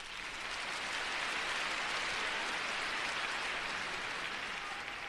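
Crowd applauding, a dense even clapping that swells in the first second and slowly fades toward the end.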